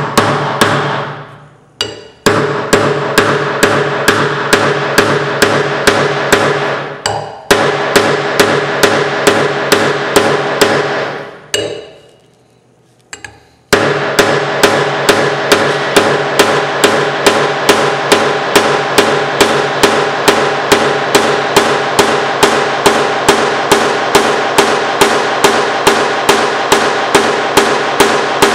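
Rapid, even hammer blows, about three a second, driving metal wedges into the top of a new wooden hammer handle seated in a steel hammer head, each blow ringing metallically. The blows stop briefly about two seconds in and again for about two seconds near the middle.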